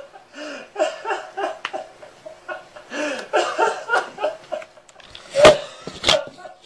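Laughter in short, breathy bursts, with two loud puffs of breath near the end.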